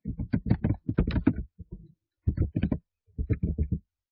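Computer keyboard typing: quick runs of keystrokes in four short bursts with brief pauses between them, as a command is keyed in.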